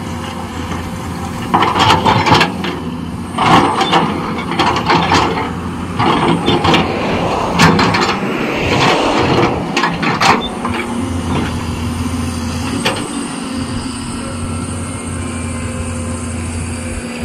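Caterpillar 320 excavator's diesel engine running under load while its toothed bucket digs into dry earth. For the first ten seconds or so there are repeated loud bursts of scraping and clattering soil. After that the engine runs steadily on its own.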